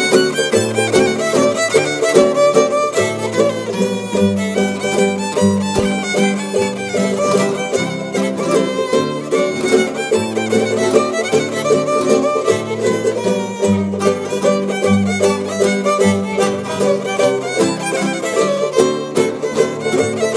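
A Canarian folk string group playing an isa: a fiddle carries the melody over strummed guitars keeping a steady rhythm, with moving bass notes.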